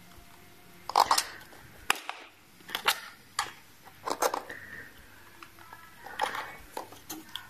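A thin metal rod clicking and scraping against the coils and metal deck of a rebuildable dripping atomizer as the coils are pushed into position. The sound comes as a string of short, sharp clicks at irregular intervals.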